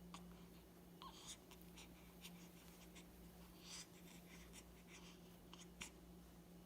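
Near silence: faint scattered rustles and small clicks over a steady low hum, a little more noticeable about a second in, near the middle and near the end.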